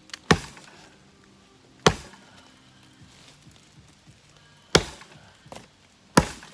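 An axe chopping into a standing tree trunk: four sharp strokes at uneven intervals, with a longer pause before the last two.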